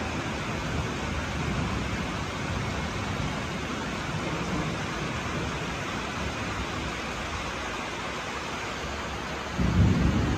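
Heavy rain pouring down steadily, an even hiss. Near the end a sudden, louder low rumble sets in over it.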